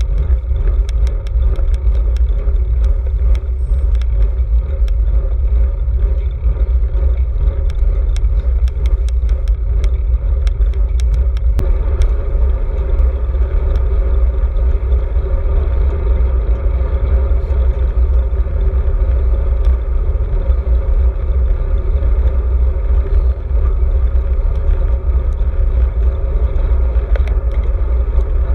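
Wind buffeting a handlebar-mounted GoPro on a moving road bike: a steady, loud low rumble, with tyre noise from the lane and frequent small clicks and rattles from the bike.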